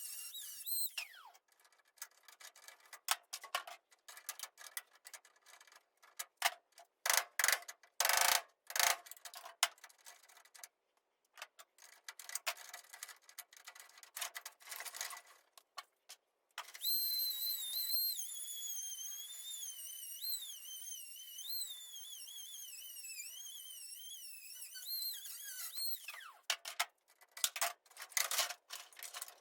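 Knocks and metal clatter, then a high-pitched power-tool whine that wavers in pitch as it loads and unloads, from a small tool cutting or drilling out an old ignition switch from a vintage dash; more knocks follow near the end.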